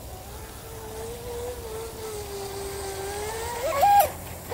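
The 4000 kV brushless motor of a 19-inch RC tri-hull boat whining steadily as the boat runs across the pond. Its pitch sags slightly, then climbs again. Near the end there are two short, loud pitched sounds.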